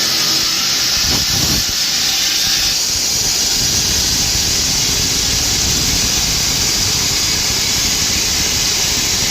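A machine running steadily and loudly, with a strong hiss over a low rumble.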